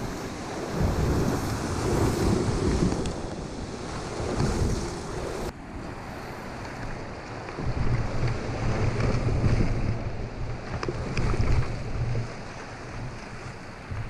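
Rushing whitewater of a river rapid churning around a kayak, with gusts of wind buffeting the microphone. The sound changes abruptly about five and a half seconds in.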